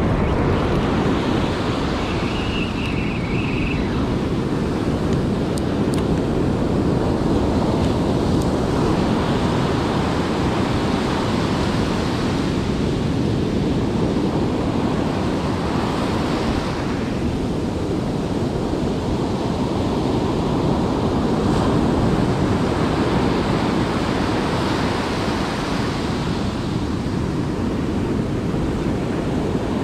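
Ocean surf breaking and washing up a sandy beach, swelling and easing every few seconds, with wind rumbling on the microphone.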